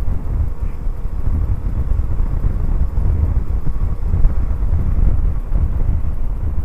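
Wind buffeting the microphone while riding, over the running Honda C90 Cub's small four-stroke single-cylinder engine.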